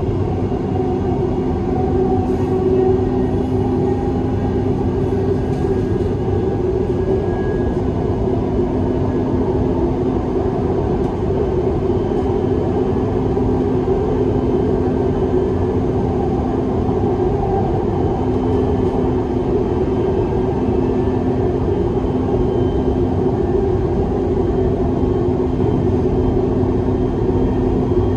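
Dubai Metro train running steadily between stations, heard from inside the carriage: a continuous rumble of wheels on rails with a steady low hum.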